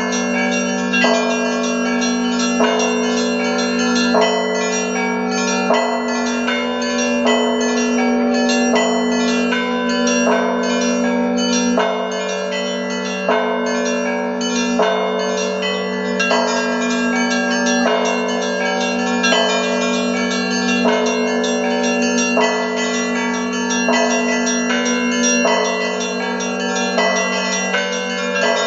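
Russian Orthodox church bells rung by hand in the zvon style: a strong stroke comes about every second and a half beneath rapid, continuous strikes on the smaller, higher bells, over a low hum from the heavier bells.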